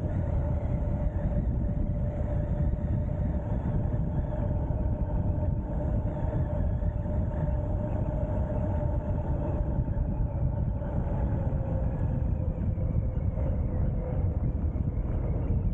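Ariel Rider X-Class 52V electric bike riding at speed: wind rushing over the microphone, with a steady whine under it that drops slightly in pitch near the end.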